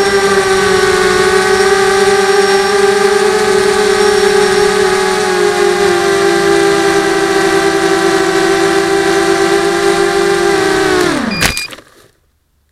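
Small FPV quadcopter's electric motors and propellers whining steadily at an even pitch, heard from its onboard camera. Near the end there is a sharp crack as it crashes, and the motors wind down quickly and stop.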